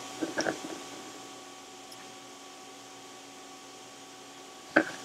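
Slip-joint pliers and small plastic 3D-printed parts being handled on a workbench: a few soft knocks in the first second and one sharp click near the end, over a steady faint hum.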